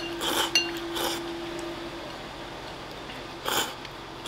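Slurping and sipping udon broth from a bowl held to the lips: a few short slurps, two in the first second and another about three and a half seconds in.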